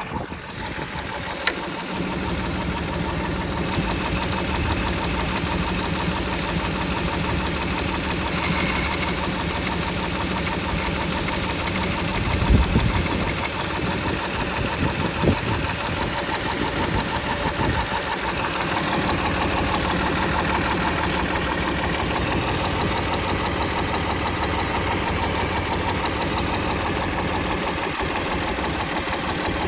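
Mercedes-Benz M272 V6 engine running steadily, mostly at idle, with an extraneous noise that the owner is asking about. There are a few brief louder swells about halfway through.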